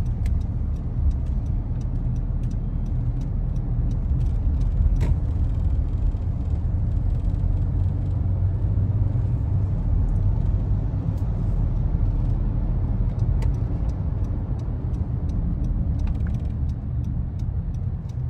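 Steady low rumble of a car driving along, heard from inside its cabin: road and engine noise.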